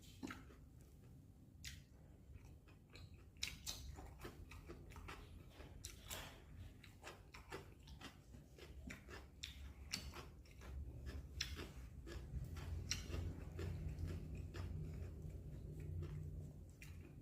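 Close-miked chewing of a mouthful of food, with irregular wet mouth clicks and smacks, as a person eats a bitter melon vegetable dish.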